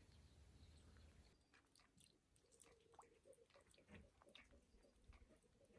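Near silence: faint scattered small clicks and ticks, with a faint steady hum coming in about two seconds in.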